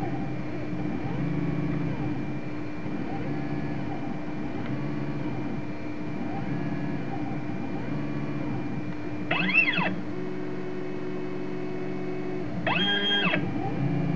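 ShapeOko CNC's stepper motors whining as they move a pen through the zigzag strokes of W letters, their pitch sliding up and down with each change of speed and direction. Twice, about nine and a half and thirteen seconds in, a louder, higher whine briefly rises and falls.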